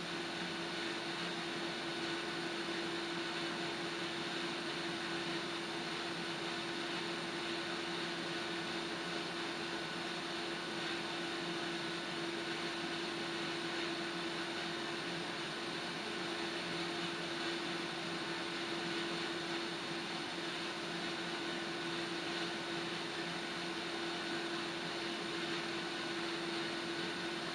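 Water heating on a gas stove burner: a steady hiss with a steady low tone held throughout.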